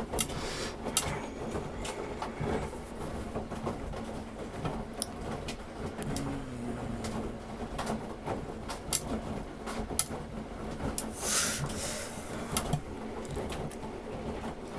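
Samsung Grande washing machine running its standard wash course: a steady motor hum with scattered clicks and knocks from the drum, and a short rush of hiss about eleven seconds in.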